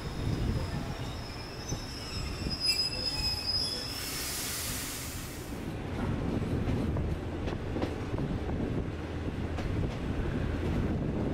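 Passenger train wheels squealing on the rails, a high squeal of several steady tones for about the first four seconds. Then a short burst of hiss, and the steady rumble of the carriage running on the track with faint clicks.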